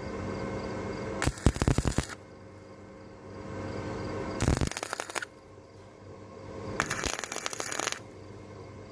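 Harbor Freight 125 flux-core wire welder's arc crackling and sputtering in three short bursts of about a second each, stitch-welding steel on a truck bed, with a steady hum between the bursts.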